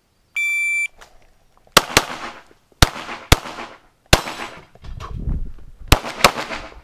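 An electronic shot timer gives a short half-second start beep. About a second later a Glock pistol opens fire: about seven shots, several in quick pairs, the last two near the end.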